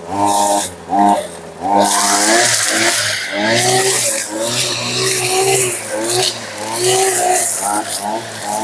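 Petrol brushcutter fitted with a chainsaw-chain trimmer head, cutting tall grass: the engine's pitch rises and falls repeatedly as it is throttled and loaded, with a hiss of cut vegetation over it.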